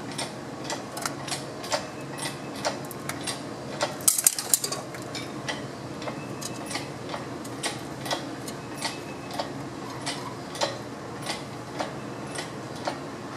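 Engine hoist lifting a cast-iron cylinder head out of a 6.5 turbo diesel: a steady ticking of about three clicks a second, with a short clatter of metal clinks about four seconds in.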